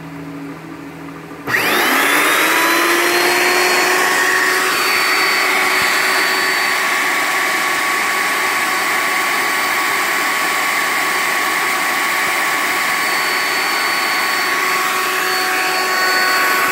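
Multiquip CV3 electric vibrator motor switched on about a second and a half in, whining up in pitch as it spins up, then running at a steady high-speed whine during a bench test.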